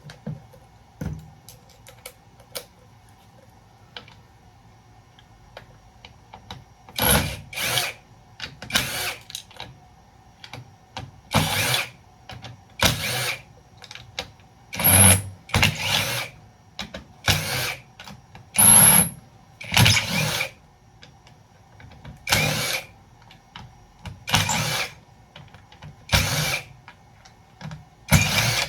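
Hand file rasping on a metal bus bar in repeated short strokes, about one a second, with an occasional high squeak, cutting through the plating to show whether the metal beneath is copper.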